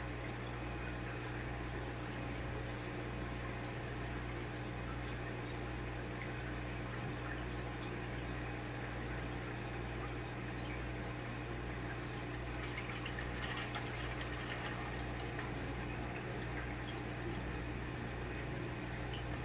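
Aquarium air bubbles burbling steadily in the tank water, over a steady low hum.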